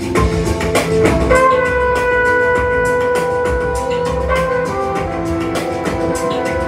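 Music with a drum beat playing through a Cosmic Lab 3000 MK II solid-state stereo amplifier; a long held instrumental note comes in about a second in.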